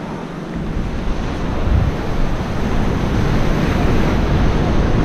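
Surf washing up on a sandy beach, with wind buffeting the microphone in a low rumble that grows louder about a second in.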